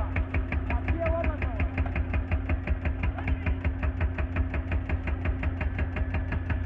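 Excavator's diesel engine running steadily, with a rapid even ticking of about six a second over its low rumble and a steady hum. A man's voice is briefly heard about a second in.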